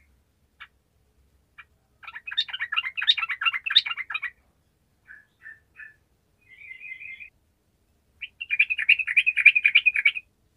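Yellow-vented bulbul (trucukan) singing: a few single notes, then a rapid chattering song burst about two seconds in, a short rasping phrase in the middle, and a second rapid song burst starting about eight seconds in.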